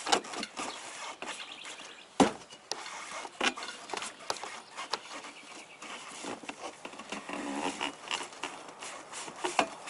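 PVC stormwater pipe being worked down through a hole cut in the boat's anchor locker floor, rubbing and scraping against the edges with scattered sharp knocks, the loudest about two seconds in.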